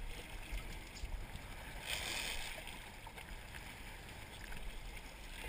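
Sea water sloshing against a small boat's hull, with wind rumbling on the microphone; a brief louder splash about two seconds in.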